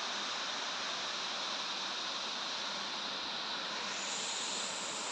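Steady rush of falling water, an even hiss with no breaks or changes.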